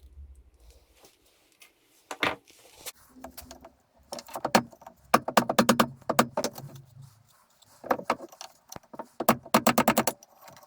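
Metal tools and parts of a drill press clicking and clinking as it is taken apart. There are a few single clinks, then three runs of fast, even clicks, one about four seconds in, one just after five seconds and one near the end.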